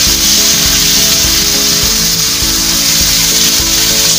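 Boneless chicken pieces and onion frying in ghee in a pan, sizzling steadily, with background music playing over it.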